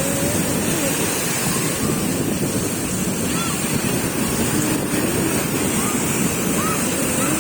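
Sea surf: waves washing in steadily, with wind buffeting the microphone and faint distant voices.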